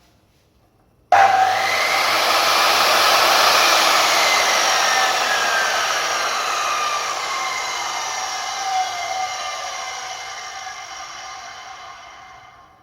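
Makita HS0600 circular saw starting abruptly at full speed about a second in, with no soft start, then switched off and spinning down unloaded, its whine falling in pitch as the blade slows over about eleven seconds with no brake.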